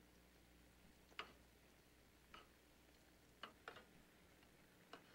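Near silence with five faint, sharp clicks spaced about a second apart, two of them close together past the middle.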